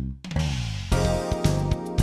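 Background music with guitar: a downward pitch slide, then a full band with repeated drum hits from about a second in.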